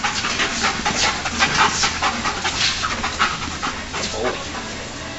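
Narcotics detection dog panting rapidly and hard during a search, the breaths getting quieter in the last second or so.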